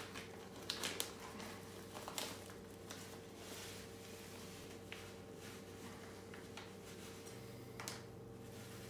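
Crushed malt grains pour softly from a plastic bag into a cheesecloth bag, with crinkles of the plastic, sharpest in the first two seconds and once near the end. A faint steady hum lies under it.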